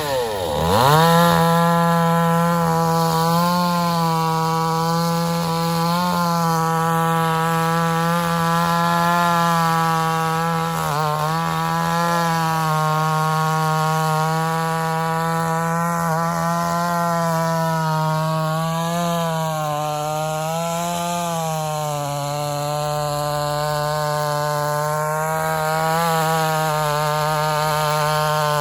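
Chainsaw revving up to full throttle and held there while cutting neem wood. Its steady, high engine note sags slightly now and then as the chain takes load.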